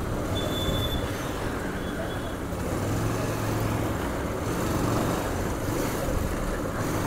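Bajaj Pulsar 150 motorcycle ridden slowly in town traffic: its single-cylinder engine runs steadily under a haze of road and traffic noise. Two faint, brief high tones come in the first few seconds.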